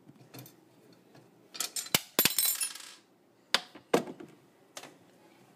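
Handling noises: a few sharp knocks and clicks, with a brief clinking rattle about two seconds in, like small hard objects or glass shards being moved against metal.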